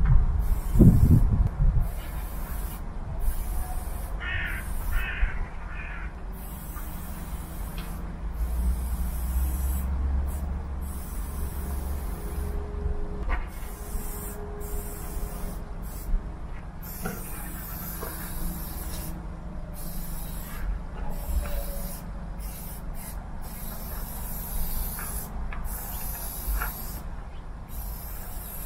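Aerosol spray paint can hissing in repeated bursts of varying length, with short breaks between them, over a steady low rumble.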